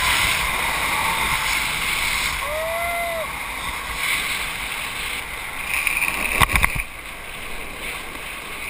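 Longboard wheels rolling fast over rough, cracked asphalt, with wind rushing over the microphone. A quick cluster of sharp clacks comes about six and a half seconds in.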